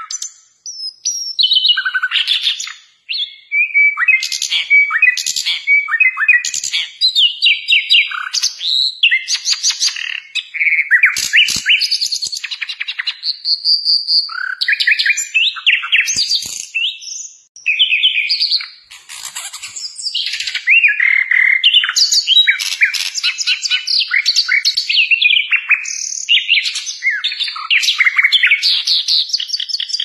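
A caged sikatan londo flycatcher singing vigorously and almost without pause: a long, varied song of fast chirps, rapid trills and slurred whistles, broken by a few short gaps.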